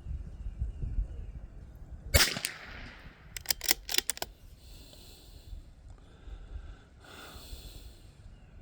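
A single .22 LR rifle shot about two seconds in, a sharp crack with a short echo tail, followed a second later by a quick run of metallic clicks as the rifle's bolt is worked to eject the spent case and chamber the next round.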